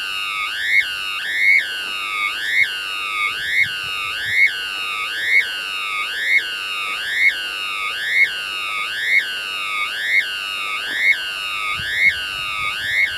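Electronic warning bells of a Bulgarian railway level crossing sounding while the barrier arms lower: a rising electronic tone repeated over and over, a little faster than once a second, warning of an approaching train.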